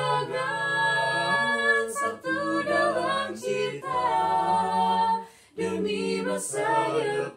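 Four-voice a cappella vocal group, two male and two female voices, singing held chords in harmony, with a short break between phrases about five and a half seconds in.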